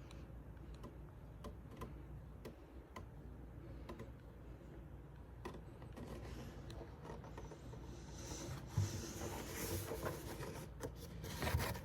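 Faint handling noise of the gas alarm's box: scattered light clicks and taps, then a louder stretch of rubbing and scraping from about eight seconds in.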